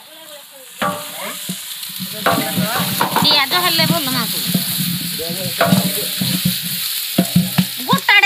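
Sliced onions sizzling as they fry in a large metal cooking pot, stirred and scraped with a long wooden stick. The sizzle swells about a second in, and the stick's strokes rasp and knock against the pot throughout.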